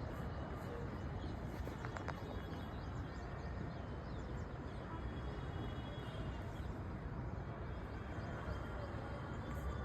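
Outdoor ambience: a steady low rumble with faint, short bird chirps scattered throughout and a single click about two seconds in.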